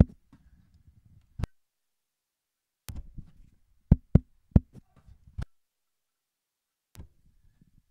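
Fingers tapping the grille of a handheld microphone, picked up through the microphone itself: single taps, then a quick run of five or six taps about three seconds in. This is a test of each XLR mic input of the audio interface in turn.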